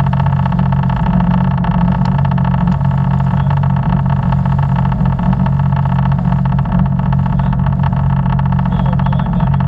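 Sea-Doo personal watercraft (jet ski) running at a steady cruising speed, its engine a constant drone.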